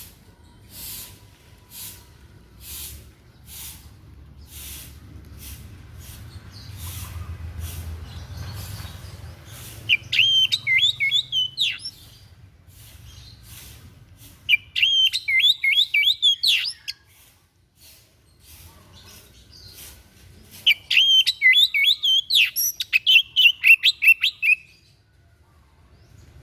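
A white-breasted songbird ('dada putih') calling: short single notes about once a second, then three bursts of fast, high twittering song, each two to four seconds long.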